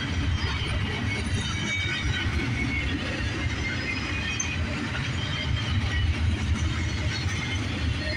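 Double-stack intermodal freight train's well cars rolling past: a steady rumble of steel wheels on the rails, with short high-pitched squeals from the wheels scattered through it.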